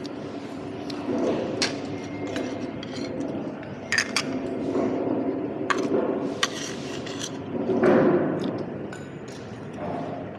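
Stainless steel fork and spoon clinking and scraping against a ceramic plate of rice and duck, with several sharp clinks spread a second or two apart and a louder scraping sound about eight seconds in, over a steady low background noise.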